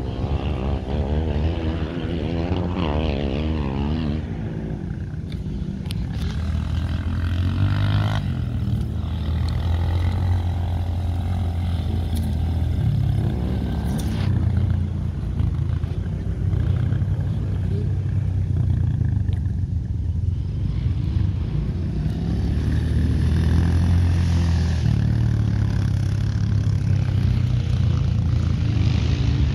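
Honda CRF230F dirt bike's four-stroke single-cylinder engine running under way, its pitch rising and falling as the throttle is worked around the track.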